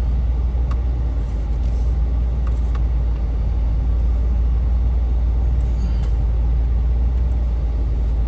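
Off-road Jeep engine running with a steady low rumble, with a few faint clicks.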